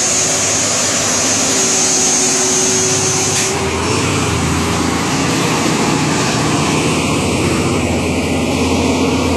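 Kenworth semi-truck's diesel engine running hard, pulling a heavy lowboy trailer past at close range: a loud, steady drone whose low end gets stronger about three and a half seconds in.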